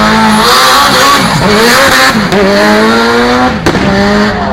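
Tuned car's engine revving hard under acceleration, its pitch climbing and dropping back at gear changes, with tyres squealing for a second or two early on and one sharp crack near the end.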